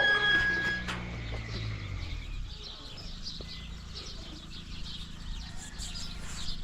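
Small birds chirping in many quick, high notes. A low steady hum and a short clear high tone are heard in the first second or two, and the hum fades out about two seconds in.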